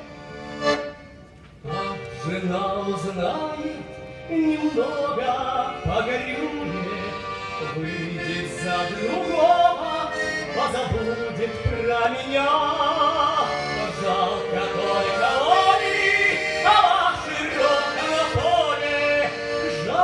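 A boy playing the accordion and singing a Russian folk song to it. The accordion plays alone at first, with a short break about a second and a half in, and his voice comes in about four seconds in.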